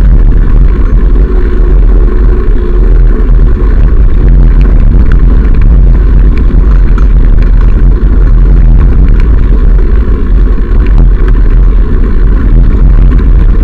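Wind buffeting a moving camera's microphone while riding a bicycle along a gravel track: a loud, steady low rumble, with scattered small clicks and rattles from the tyres on the gravel.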